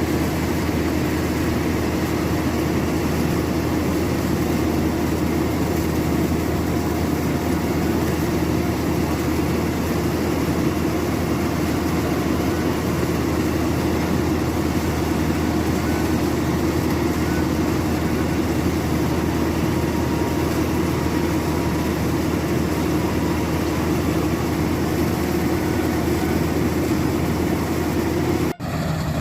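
Maxxi Bimo 102 rice combine harvester running steadily, its engine and threshing machinery making a constant heavy drone, broken off for an instant near the end.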